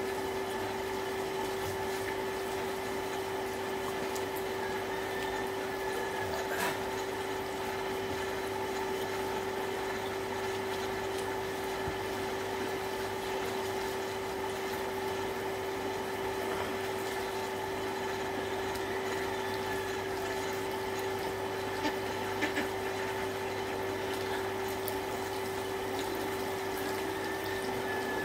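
Electric water pump running with a steady hum while water flows from a hose and splashes onto the ground.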